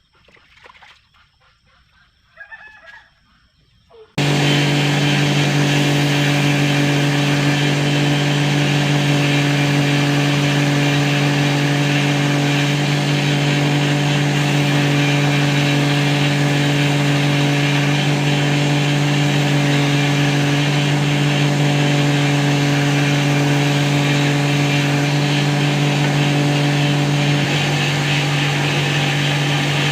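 An electric power tool comes in suddenly about four seconds in and runs steadily: a constant motor hum under a loud, even whirr.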